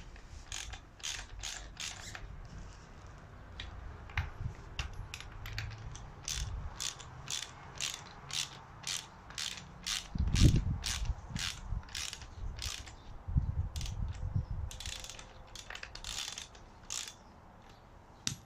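A hand ratchet clicking in a steady run of strokes, about two to three clicks a second, with a few dull knocks in the middle.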